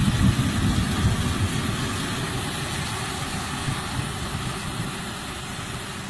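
Steady noise of a Caterpillar hydraulic excavator's diesel engine running over fast-flowing floodwater, loudest at first and gradually fading.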